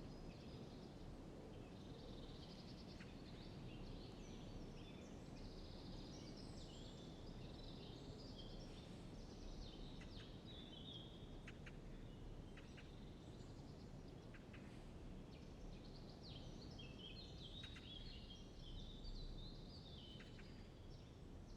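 Faint birds chirping, many short high chirps and trills coming and going over a low steady background hiss.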